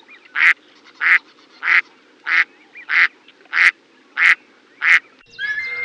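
Duck quacking: eight short quacks in a steady rhythm, about one every two-thirds of a second. Near the end it cuts to birds chirping.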